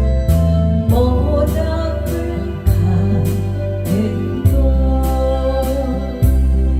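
Music: a singer performing a Korean ballad over a backing track with a heavy bass and a steady drum beat. The voice comes in about a second in.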